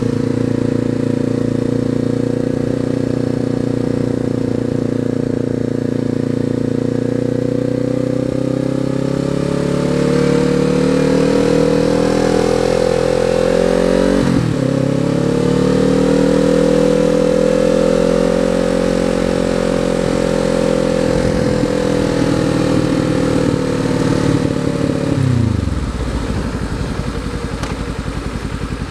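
A 2019 Kawasaki Z400's parallel-twin engine, fitted with an Akrapovič exhaust, heard from the rider's seat while riding. It holds steady, then climbs in pitch, with a brief dip at a gear change about halfway through. It eases off, then drops sharply a few seconds before the end as the throttle is closed and the bike slows.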